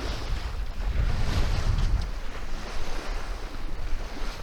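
Wind buffeting the microphone over the rush of water along a Maxi 95 sailboat's hull under sail, with a gust of low rumble for about a second near the start.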